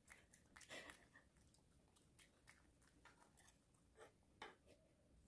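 Faint, sparse clicks and soft crunches: a Maltese dog chewing a bite of homemade sweet-potato cheese cake, then a knife cutting down through the soft cake onto a wooden board, with one sharper click a little after four seconds.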